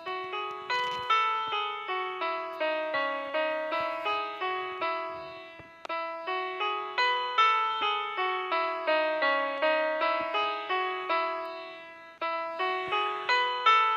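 Background music: a light keyboard melody of quickly fading piano-like notes, two or three a second, in a phrase that starts over about every six seconds.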